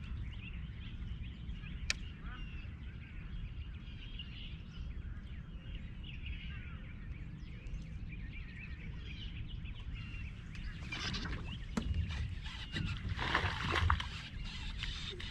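Birds chirping over a steady low rumble of wind, with a sharp click about two seconds in. From about eleven seconds in, louder bursts of splashing and handling noise.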